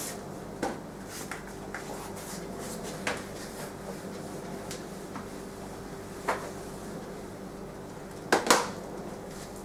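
A whiteboard being erased by hand: a few short knocks and taps against the board, the loudest a pair of knocks near the end, over a steady low hum.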